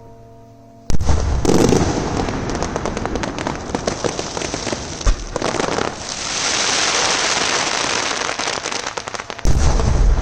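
Fireworks display: a sudden loud burst about a second in, then dense rapid crackling of shells bursting, a steady hissing crackle in the middle, and a fresh round of heavy booms near the end.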